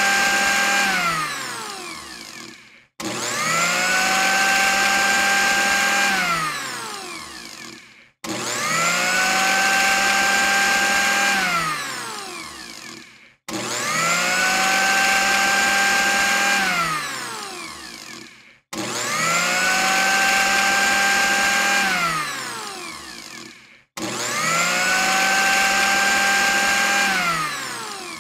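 Electric countertop blender motor switched on and off over and over. Each time it spins up with a rising whine, runs steady for about two seconds, then winds down in falling pitch and stops, with the cycle repeating about every five seconds.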